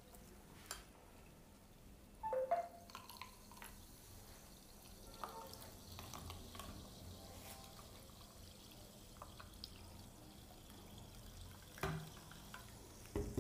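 Chilled soda water poured slowly from a plastic bottle over a bar spoon into a tall glass of ice and mango purée: a faint trickle of liquid, with a light clink about two seconds in.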